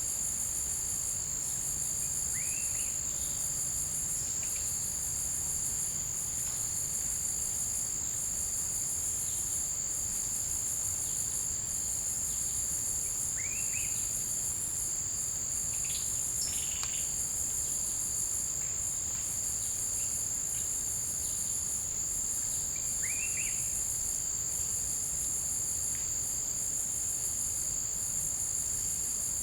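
Forest insect chorus: a steady, high shrill tone with a pulsing buzz above it that swells about once a second. A faint short rising call sounds three times, about ten seconds apart.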